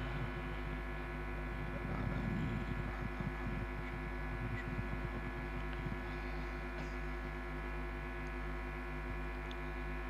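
Steady electrical hum from the microphone and sound system: one constant buzzing drone made of many evenly spaced tones, heard during a pause in the recitation.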